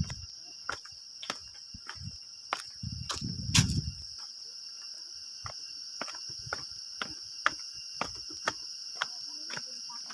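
Insects shrilling steadily on one high pitch in the forest, with scattered sharp clicks and taps and a short low rustle about three seconds in.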